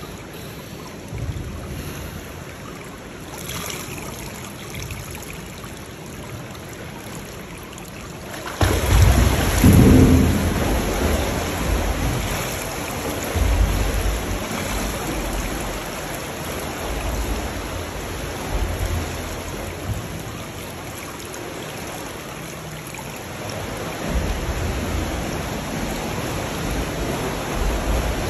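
Swimming-pool water splashing and sloshing right at the microphone at water level, with a swimmer in fins kicking and stroking down the lane. The splashing turns suddenly much louder about nine seconds in.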